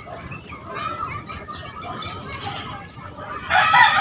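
A rooster crowing loudly, starting about three and a half seconds in, after a stretch of faint background sound.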